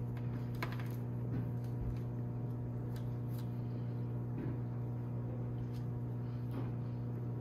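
Steady low hum with a stack of even overtones, with a few faint light clicks and rustles from a white power cord being handled as a knot is tied in it.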